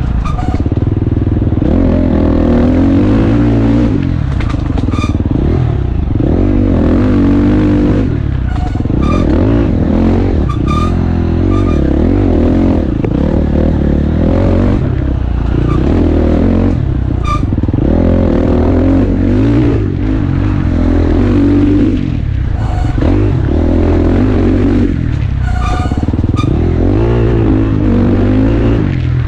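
Enduro dirt bike engine heard close from onboard, revving up and falling off again every couple of seconds as the bike is ridden hard along a tight trail. Scattered sharp clicks and knocks sound over the engine throughout.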